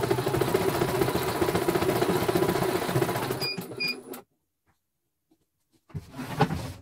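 CNY portable computerized embroidery machine stitching on a test stitch-out, its needle mechanism running in a fast steady rhythm, then stopping about three and a half seconds in with two short beeps. After a gap of silence come a few clicks and a sharp knock near the end.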